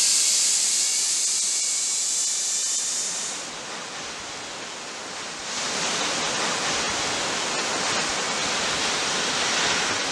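Steady rushing hiss of falling water from a waterfall. It is high and bright for the first few seconds, drops a little around four seconds in, then comes back fuller and deeper from about five and a half seconds in.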